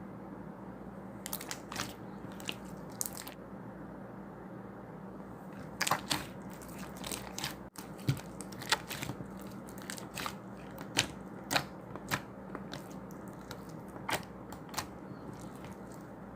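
Clear slime being pressed and stretched by hand, giving irregular sharp sticky clicks and pops that come thicker in the second half, over a steady low hum and hiss.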